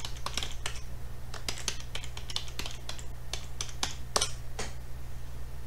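Typing on a computer keyboard: a quick, irregular run of keystrokes for about four and a half seconds, ending in two louder clicks, over a steady low hum.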